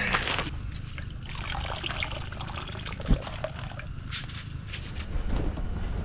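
Water and slush trickling and sloshing in a freshly augered hole in lake ice, with small clicks of ice chips and a single sharp thump about three seconds in.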